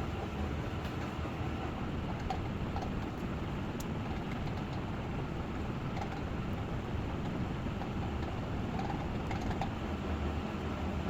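Steady low hum of an energized microwave-oven transformer converted into a spot-welding transformer, running during a voltage test, with a few faint ticks.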